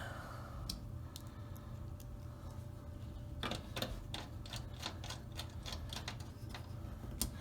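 Light clicks and taps of small screws being set and driven with a screwdriver to fasten a TV's replacement T-Con board, scattered at first, then a quick run of clicks a little past halfway and one more near the end, over a faint low hum.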